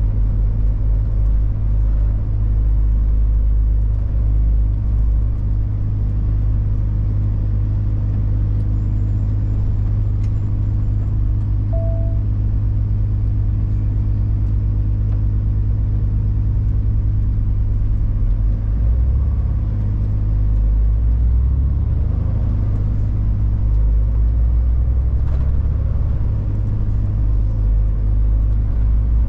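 Heavy truck's diesel engine droning steadily, heard from inside the cab while driving, its low note shifting about twenty seconds in. A single short beep sounds about twelve seconds in.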